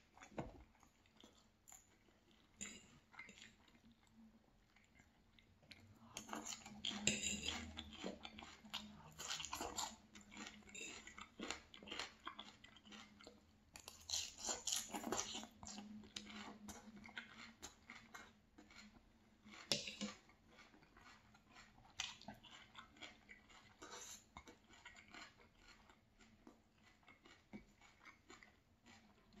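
Close-up chewing and crunching of food, including bites of crisp lettuce and cabbage salad. The crunches come in irregular clusters, with now and then the clink of a knife and fork against a plate.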